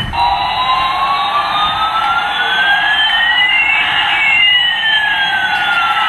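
Battery toy 747 airliner's electronic sound chip playing a siren-like effect: a steady tone under two slow gliding tones, one rising while the other falls.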